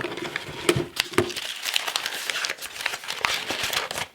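Crinkling and rustling of something being handled, a dense run of small crackles.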